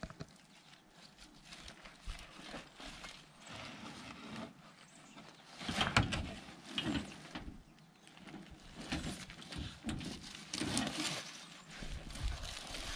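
Rustling, scraping and irregular knocks of a person crawling over dry leaves and dirt into a crawl space under a cabin, loudest about halfway through and again near the end.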